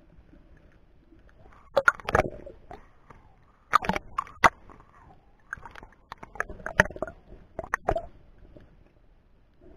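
Water sloshing and gurgling around a camera held just below the surface, with clusters of sharp clicks and knocks about two seconds in, around four seconds in, and again from six to eight seconds in.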